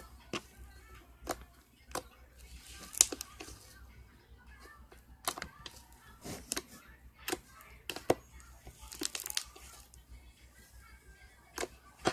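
Slime being kneaded and stretched by hand, giving irregular sharp wet clicks and pops, over faint background music.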